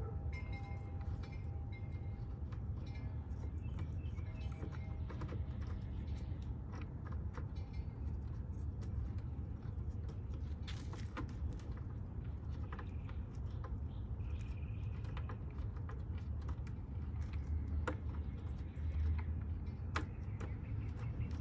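Hand tool working fairing fasteners loose on a Kawasaki ZX-10R sport bike: scattered light clicks and taps, over a steady low rumble.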